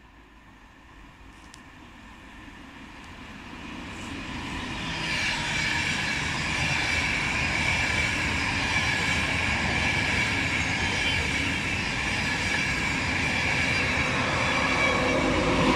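Electric-hauled passenger train of Mark 4 coaches passing close by. The rush of wheels on rail builds over the first five seconds, then holds loud and steady with a high whine running through it.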